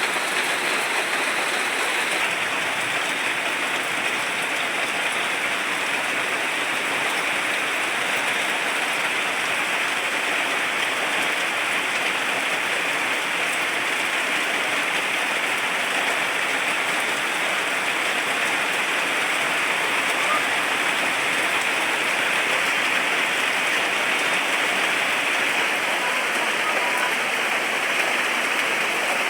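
Steady rainfall: a dense, even hiss of drops that holds level throughout.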